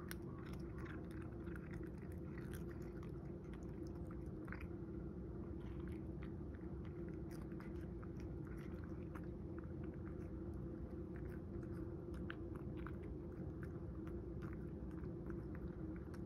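A cat chewing dried sardines (niboshi): many small, irregular crunches, over a steady low hum.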